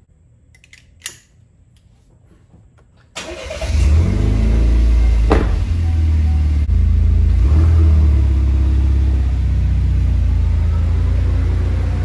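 A Chevrolet Camaro's engine starting: it catches suddenly about three seconds in, flares up briefly, then settles into a loud, steady run. A short knock comes about a second in, before the start.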